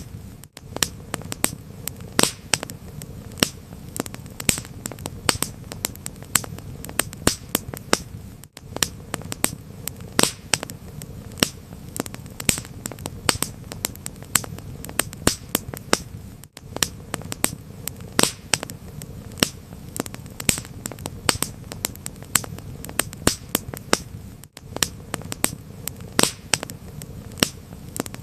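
Wood fire crackling, with frequent sharp pops and snaps over a steady low background. The sound drops out briefly about every eight seconds.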